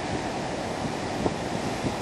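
Storm surf breaking and washing up a sandy beach in a steady roar of churning water, with wind buffeting the microphone.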